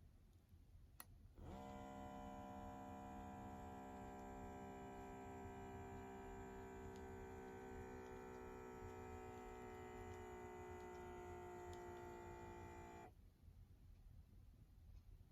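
Small electric air pump of an automatic blood pressure monitor whining steadily as it inflates the cuff, its pitch sinking slowly as the cuff pressure builds. It stops abruptly after about eleven seconds, when inflation ends and the reading begins.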